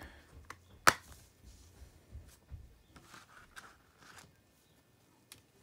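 A plastic Blu-ray case and its paper insert being handled as the contents go back in: soft rustles and light taps, with one sharp click about a second in.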